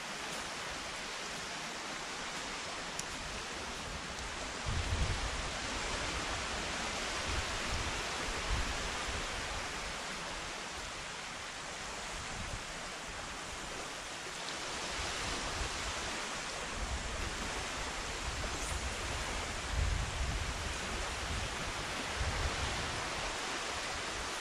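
Steady hiss of wind and shallow surf, with low rumbles of wind buffeting the microphone about five seconds in, again near eight seconds, and on and off through the last several seconds.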